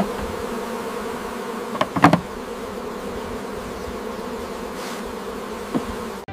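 Honeybees buzzing steadily at an open hive, a dense droning hum, with a few short knocks, the loudest about two seconds in and another near the end.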